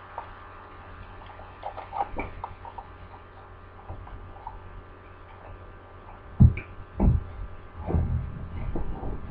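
Steady low hum under close, dull thumps and rubbing rumbles against the microphone about six to nine seconds in, as a black-and-white cat's body brushes against the camera, with a few light clicks about two seconds in.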